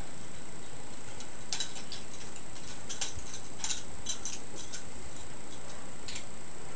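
Balisong (butterfly knife) being flipped through a pinky rollover: light, irregular clicks and clacks of the handles and blade swinging on their pivots, over a steady high-pitched whine.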